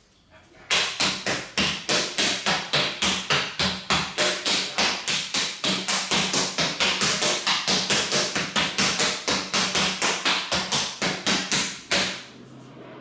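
Two rattan sticks striking a stack of rubber car tyres in a fast, continuous drill, about four to five hits a second. The hits start about a second in and stop suddenly near the end.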